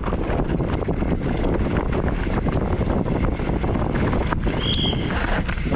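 YT Tues downhill mountain bike ridden fast over a dirt forest trail, heard through an action camera's microphone: steady wind buffeting over tyre rumble and a constant rapid clatter of the chain and frame rattling over roots and stones. A short high squeal comes about three-quarters of the way in.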